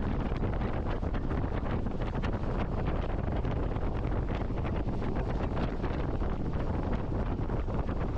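Wind buffeting the microphone: a rough, steady rushing with many small crackles.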